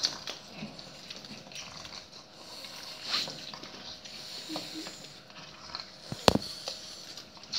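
Two dogs play-mouthing each other: wet chewing, licking and snuffling sounds, broken by small clicks. A single sharp tap about six seconds in is the loudest sound.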